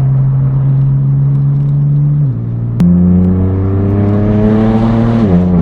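BMW M4 F82's twin-turbo inline-six with a straight-piped exhaust under acceleration: it holds a steady note, gives a sharp crack about halfway, then rises in pitch for about two seconds before dropping suddenly at an upshift near the end.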